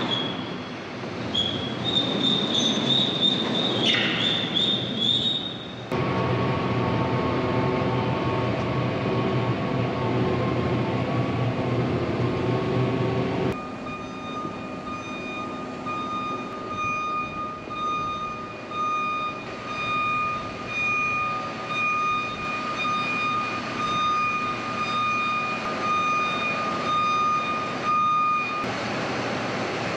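Case IH Patriot self-propelled sprayer running as it creeps forward: steady engine and drive rumble. From about halfway there is a steady high whine on top. The sound changes abruptly about six seconds in and again near the middle.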